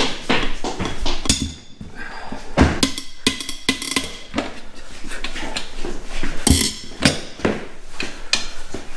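Irregular metallic clanks and knocks of a wrench working bolts on a stripped-down Volvo T6 engine, some with a short metallic ring.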